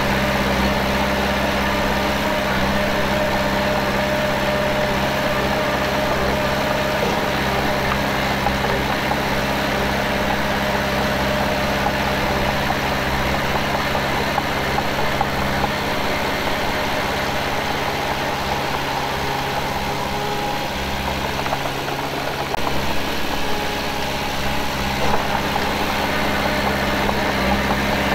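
Heavy earthmoving machine's diesel engine running steadily. It eases slightly about three quarters of the way through, then picks up again.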